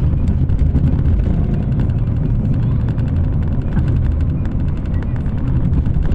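Steady low rumble of a moving vehicle heard from inside: engine, tyre and wind noise while travelling at speed.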